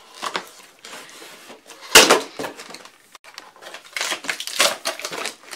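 Stiff cardboard latches on a monitor box being pulled open by hand: irregular crunching and scraping of cardboard, with a loud sharp snap about two seconds in.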